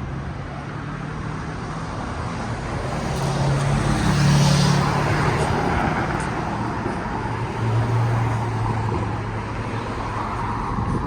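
Road traffic: a steady rush of passing cars with low engine hum, one vehicle swelling loudest about four seconds in and another engine coming through near the end.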